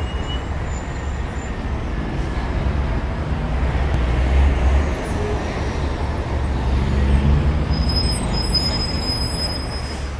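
Steady rumble of city road traffic, a continuous wash of vehicle noise that is heaviest in the low end, with a faint high squeal near the end.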